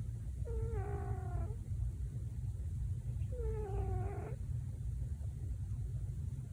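An elderly domestic cat, asleep, gives two drawn-out, slightly falling vocal calls about three seconds apart, sounds the owner calls her snores. A steady low rumble runs underneath.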